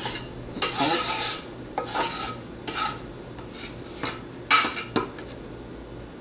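A knife scraping soft, very ripe canistel (eggfruit) flesh off a wooden cutting board into a glass blender jar, in a run of short irregular scrapes. A sharp knock about four and a half seconds in, with a lighter one just after.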